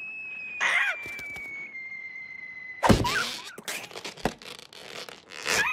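Cartoon sound effects: a long, slowly falling whistle of something dropping from the sky, cut off by a loud crash about three seconds in. Short squawking character cries come shortly before and near the end.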